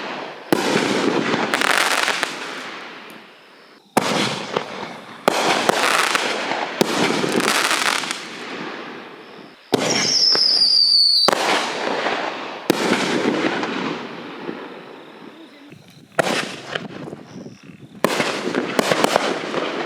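7-inch canister aerial shells going off one after another: about a dozen sharp reports, each followed by a long fading crackle, with a high falling whistle about ten seconds in.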